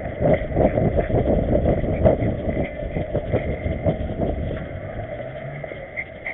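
Dog-mounted action camera knocking and rubbing in time with the dog's steps, several soft thumps a second for about four seconds. The knocks then fade, leaving a low street-traffic hum.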